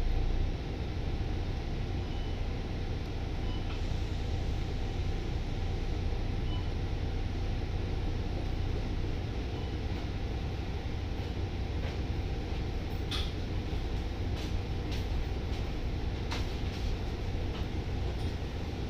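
Cabin sound of a Volvo B9TL double-decker bus under way, heard on the upper deck: the steady low rumble of its six-cylinder diesel engine and the road. A few short clicks and rattles come through about two-thirds of the way in.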